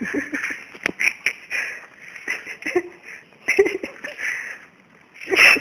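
Hill myna (beo) imitating human laughter in a string of raspy, breathy bursts, the loudest near the end.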